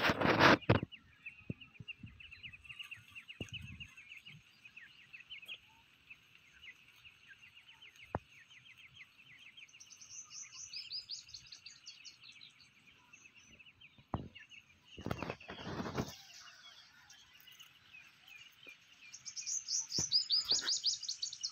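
Grey francolin (teetar) chicks calling in long runs of quick, high chirps, with louder, higher chirp series about ten seconds in and again near the end. Brief rustling noises at the start and about fifteen seconds in.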